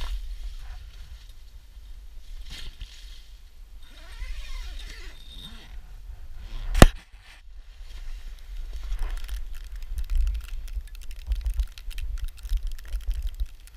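Camera handling noise and fabric rustling as the camera is moved about in an ice-fishing shelter, over a low rumble, with one sharp click about seven seconds in and denser crackling noise toward the end.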